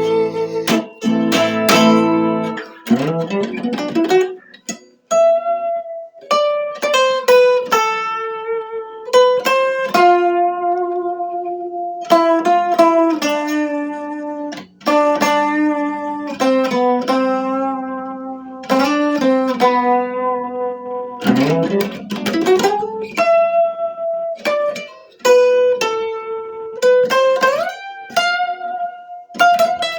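Instrumental music: a plucked guitar playing a slow melody of single notes and chords, with a rising sweep about three seconds in and again about twenty-one seconds in.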